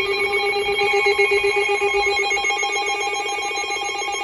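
Weather alert radio's alarm going off for an incoming National Weather Service warning: a loud, harsh buzzing tone with a fast flutter, starting abruptly and holding steady.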